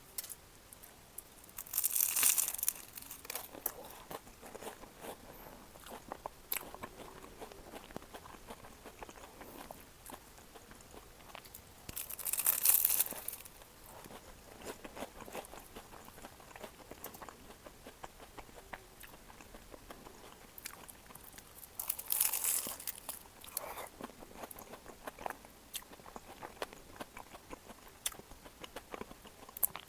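Close-up eating of a crunchy pastry tart: three loud, crackly bites roughly ten seconds apart, each followed by quieter crunchy chewing.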